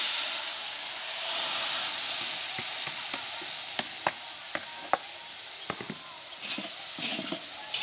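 Tamarind sauce sizzling in a large basin of hot fried garlic, the hiss slowly dying down. Around the middle, a series of light clicks of a stirring utensil against the basin.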